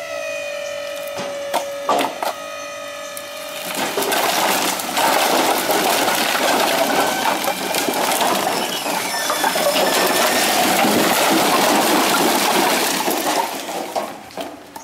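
A pickup's dump bed rising with a steady hydraulic whine and a few sharp knocks, then a load of split firewood sliding out of the tilted bed and clattering down onto a pile for about ten seconds, tapering off near the end.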